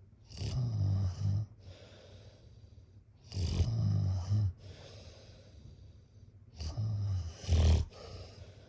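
Snoring: three loud, low rattling snores about three seconds apart, each a second or so long, with softer breaths out between them.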